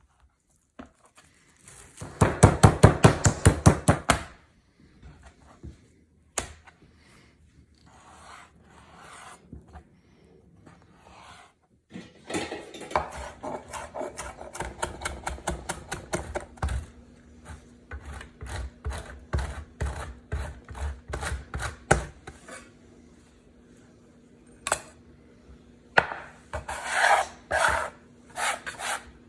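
Kitchen knife work in quick scraping and chopping strokes: a fast run a couple of seconds in, a longer uneven run in the middle, and a short burst near the end. A low steady hum runs underneath from about halfway through.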